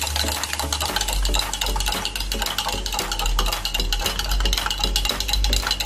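Plastic spoon stirring water in a glass mug, rapid clinking and scraping against the glass as rock salt and lemon juice are mixed in to dissolve. Background music with a pulsing bass runs underneath.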